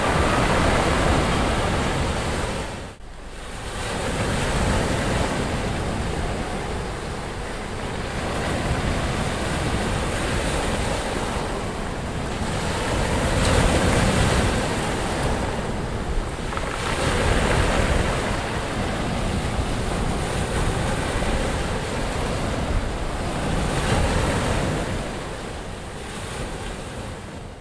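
Sea surf washing onto a sandy beach, with wind: a steady rush of water noise that swells and eases every few seconds. It cuts out briefly about three seconds in and fades down near the end.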